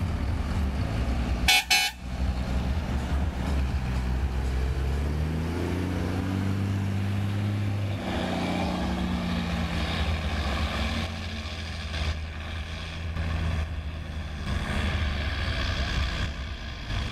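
Mercedes-Benz Atego truck's diesel engine running as it drives slowly past, with a short horn toot about a second and a half in. The engine note climbs between about five and eight seconds in.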